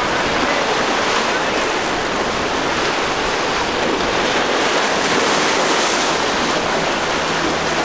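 Steady rush of waves and boat wake, with wind buffeting the microphone; a low engine hum comes in near the end.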